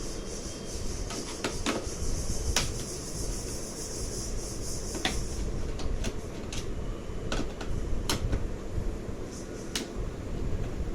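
Scattered sharp clicks and knocks of tools and small parts being handled while working on a mixer, over a steady low rumble. A high hiss in the background stops about five seconds in.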